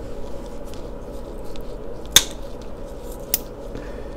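Two sharp plastic clicks about a second apart, the first the louder, as a Blythe doll's eye mechanism is worked by its pull strings and the eye chips turn to the next colour; the mech is turning properly after repair.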